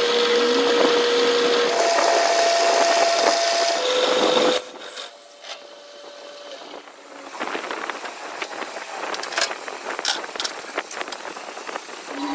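Metalworking noise: a steady hiss with a constant whine that shifts pitch a couple of times for about four and a half seconds, then stops suddenly, leaving scattered clicks and taps of tools on metal.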